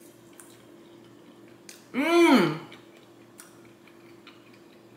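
A man chewing a fried beef dumpling, with a few faint wet mouth clicks, and a short hummed "mmm" about two seconds in whose pitch rises and falls.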